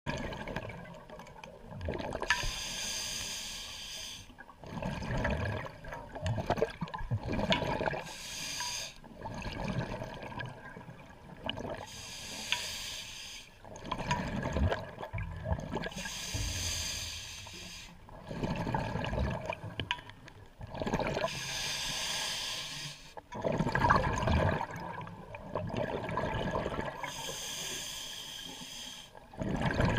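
Scuba diver breathing through a regulator underwater: hissing bursts alternate with rumbling exhaled bubbles, one breath about every five seconds.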